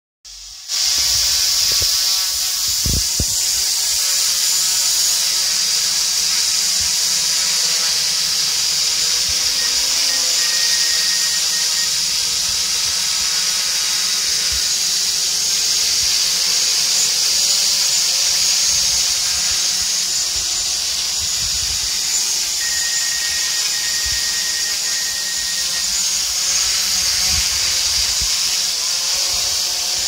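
DJI Mavic Pro quadcopter hovering close by: the steady, high whine and hiss of its four spinning propellers and motors.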